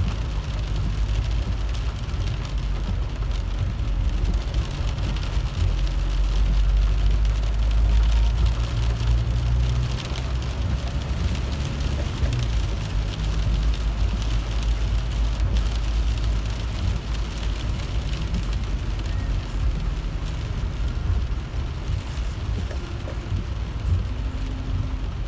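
Car interior noise while driving in rain: a steady low rumble of engine and tyres on the wet road, with rain hitting the windshield.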